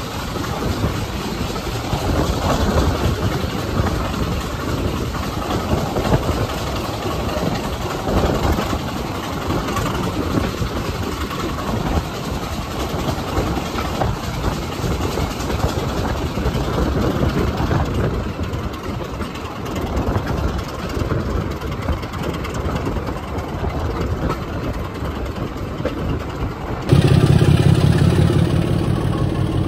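Class 25 diesel locomotive's Sulzer six-cylinder engine hauling the train, heard from an open coach window along with the running noise of the coaches on the rails. About 27 seconds in, the sound turns suddenly louder and deeper, with a strong low engine note.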